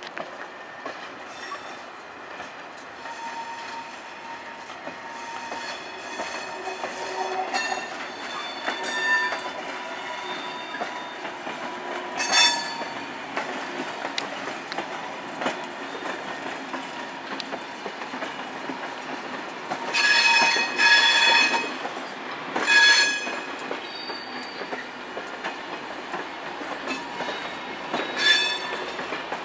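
SNCF Corail passenger coaches rolling slowly through station tracks, wheels clicking over rail joints and squealing high on the curves and points. Several sharper squeals stand out, the loudest two about two-thirds of the way in.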